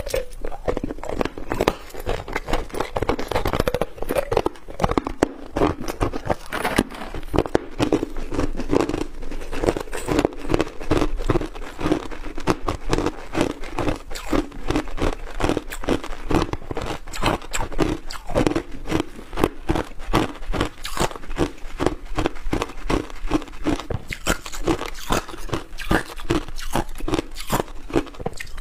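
Chunks of hard ice being bitten and chewed, close to a clip-on microphone: a dense, continuous run of sharp crunches, several a second.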